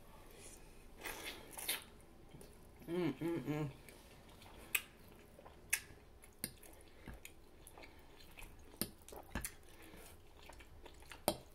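A person chewing a mouthful of cooked collard greens close to the microphone, with wet mouth clicks and smacks scattered through. About three seconds in there is a short vocal sound.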